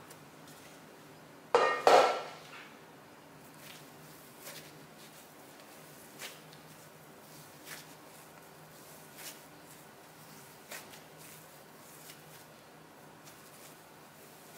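Hands kneading soft, slightly sticky dough on a silicone baking mat, with faint taps about every second and a half as the dough is folded and pressed down. About one and a half seconds in, a loud double clatter with a brief ring stands out above the rest.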